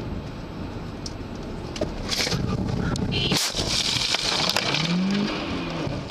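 Dashcam recording from inside a moving car: steady road and engine noise, then a sudden bang about three and a half seconds in followed by a burst of harsh noise, as in a car crash.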